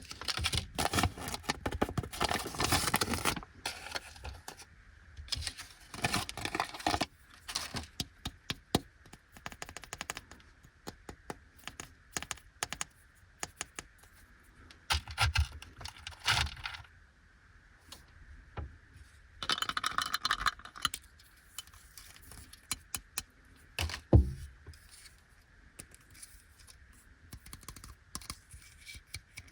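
Sweet packaging being handled and opened: plastic wrappers crinkling in short bursts, with scattered clicks and taps and one louder knock about two-thirds of the way through.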